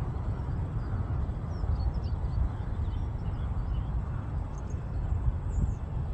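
Wind buffeting the microphone as an uneven low rumble, with faint, scattered small bird chirps above it.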